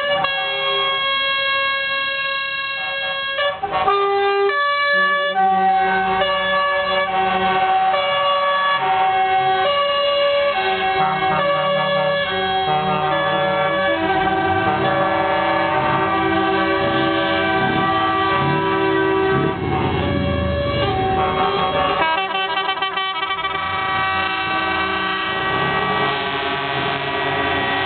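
Lorry air horns sounding in long held blasts, several tones at once, with the notes changing every second or so. Between about halfway and three-quarters through, a truck's diesel engine rumbles underneath as it passes.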